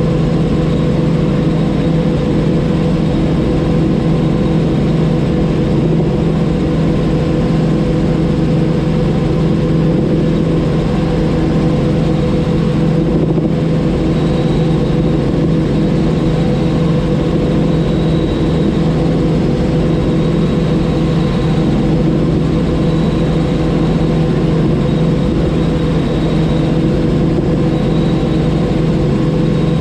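Robinson R44 helicopter's piston engine and rotors running steadily: a constant loud drone with several steady tones.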